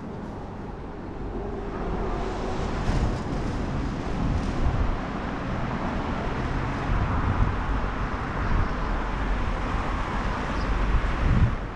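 City street ambience: steady traffic noise from nearby roads, with irregular low rumbling gusts of wind on the microphone.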